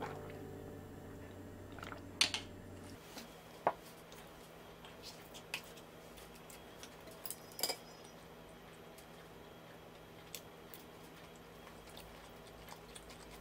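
Quiet eating sounds: a few light clicks of chopsticks and a spoon against dishes, about two seconds in, near four seconds and near eight seconds, with soft chewing and smaller clicks between. A music note fades out over the first few seconds.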